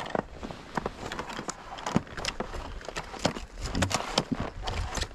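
Irregular clicks, knocks and snow crunches as a ski boot is worked into a ski binding on snow.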